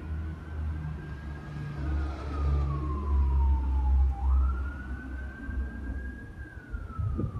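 Distant siren wailing, its pitch gliding slowly up and down in long sweeps, over a low rumble that swells in the middle.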